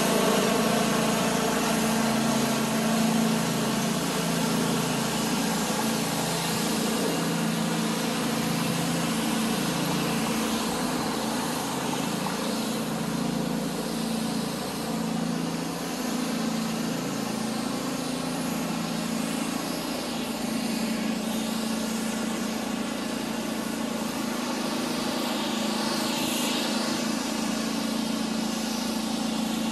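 Steady engine hum, a stack of pitched tones over a constant background noise, with no clear starts or stops.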